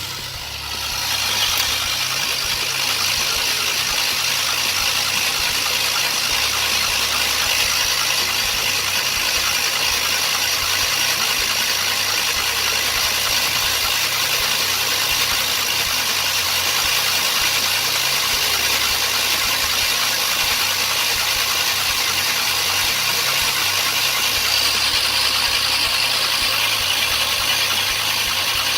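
A 3800 (L26) V6 engine of a 2005 Pontiac Grand Prix being cranked steadily on its starter motor with the spark plugs out, so it spins without firing. This is done to prime the oil pump and push oil up to the lifters after the engine had been seized.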